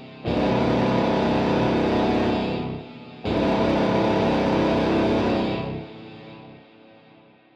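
Distorted electric guitar playing heavy, sustained rock chords: two loud chord blasts, each cut off short, then a third that rings out and fades away near the end.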